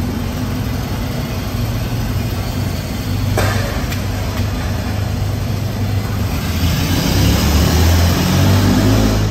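Steady low engine rumble that grows louder over the last few seconds, with a single sharp knock about three and a half seconds in.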